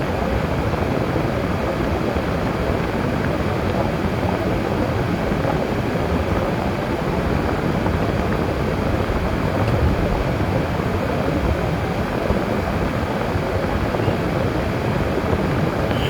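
Steady road, tyre and engine noise of a car being driven, an even rushing sound without clear changes.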